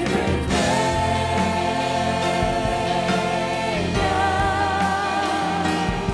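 Live worship music: a singer holds one long note from about half a second in until nearly four seconds, then moves to another note sung with vibrato, with backing singers and a band playing underneath.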